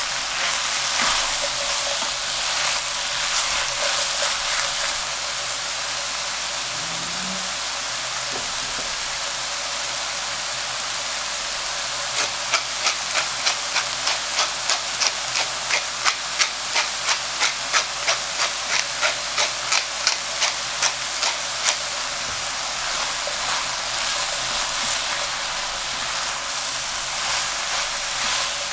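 Diced leek, carrot and button mushrooms sizzling steadily in a stainless steel sauté pan. Through the middle there is a run of regular sharp strokes, about three a second, that then stops.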